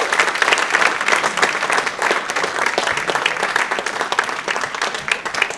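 Banquet audience applauding an award winner, a dense patter of many hands clapping that slowly fades toward the end.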